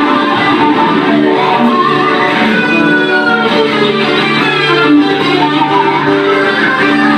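Two acoustic guitars playing an instrumental duet through the club's PA, picking many quick notes over a steady accompaniment.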